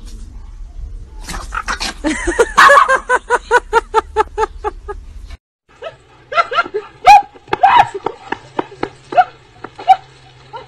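A dog yapping rapidly, about five high yaps a second for some four seconds, breaking off suddenly. After a short gap, louder, irregular yelps and barks follow.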